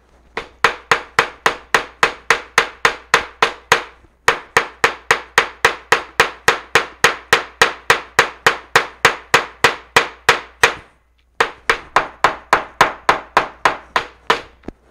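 Small hammer tapping rapidly and evenly on leaves under a paper towel, laid on paper over a cutting mat, about four to five blows a second, pounding the leaf pigment into the paper. The hammering stops briefly twice, once about four seconds in and again a little before the end.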